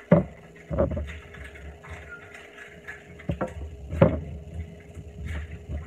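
Potato being peeled with a hand vegetable peeler at the sink: rasping scrapes and handling noise, with a few sharp knocks, the loudest just after the start and about four seconds in.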